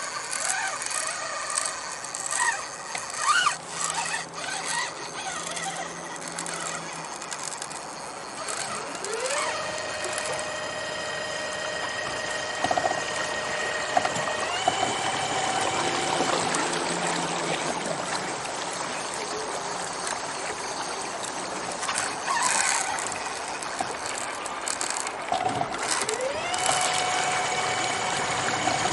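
Fishing kayak's motor whining as it spins up about a third of the way in, stepping higher in pitch, easing off, then spinning up again near the end and holding. Water rushes along the hull as the kayak moves.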